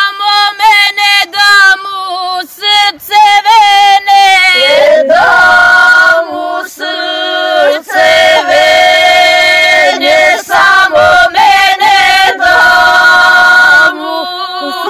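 A group of women singing a traditional Serbian village song together, unaccompanied, in long held notes broken by short breaths.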